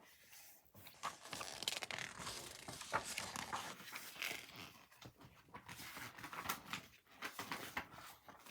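Paper rustling and crinkling in short irregular crackles, as book pages are handled and turned.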